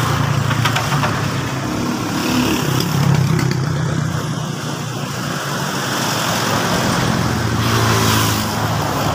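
Motor vehicles passing on the road, their engines swelling and fading, loudest about three seconds in and again near the end.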